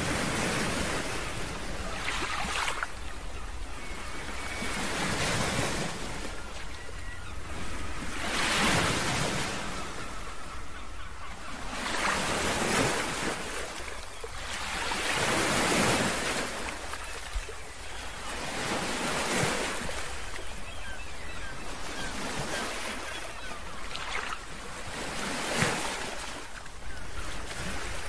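Ocean surf breaking and washing over a rocky shore, swelling and fading about every three to four seconds. A steady low wind rumble sits on the microphone underneath.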